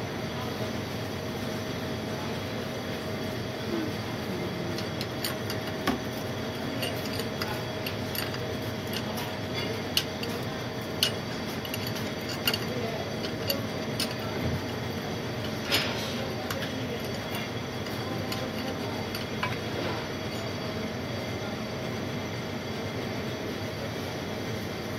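A hand tap being worked into the stripped oil drain plug threads of an oil pan, with scattered sharp metallic clicks and clinks from the tap and its wrench over a steady background hum.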